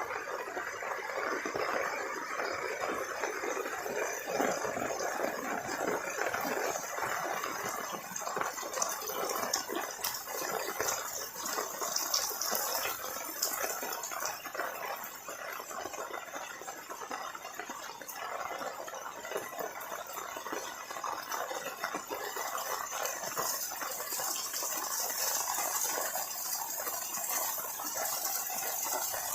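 Heavy rain falling steadily, a dense even hiss of drops with a fine crackle of impacts.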